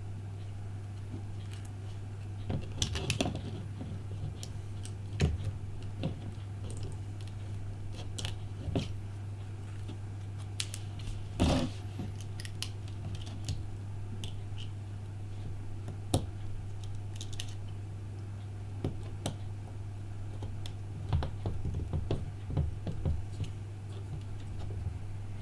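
Scattered small clicks, taps and scrapes of hand tools and small parts being handled while working on an iPhone 5, over a steady low hum.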